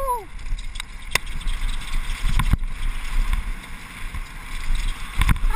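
Wind noise and rumble on a helmet camera riding a chainless downhill mountain bike down a dirt trail, with a few sharp knocks spread through it.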